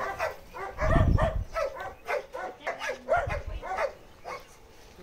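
Many caged dogs barking over one another, short barks coming several times a second. Two low rumbles on the microphone, about a second in and past three seconds.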